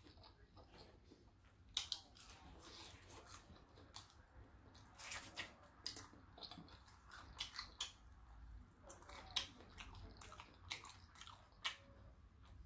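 Faint close-up chewing of fried food, with scattered soft crunches and mouth clicks at an irregular pace.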